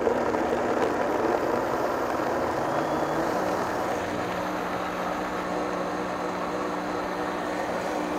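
Countertop blender motor running, pureeing grilled pineapple with sweetened condensed milk and vanilla paste into a smooth base. The motor's pitch rises a little about three seconds in, as the chunky mix turns smooth.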